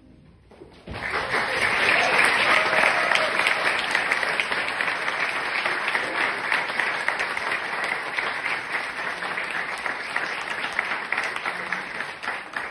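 Audience applauding: after a brief hush, clapping breaks out about a second in, stays full and even, and begins to thin out near the end.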